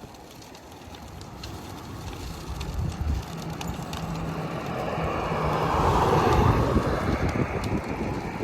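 Motor vehicle approaching: its engine and tyre noise grow steadily louder and are loudest about six seconds in.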